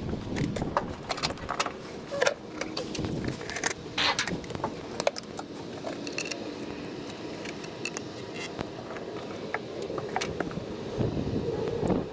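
Hands working in a truck's engine bay: a stream of quick clicks, taps and light rattles from handling parts, a plastic funnel and a fluid bottle, over a steady low background noise.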